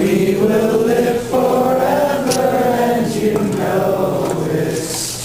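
Voices singing long held notes, chant-like, with the note changing twice.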